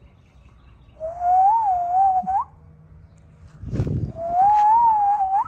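A person whistling twice to call a puppy: two wavering whistled notes of about a second each, both ending with a quick upward flick, with a brief low rumble between them.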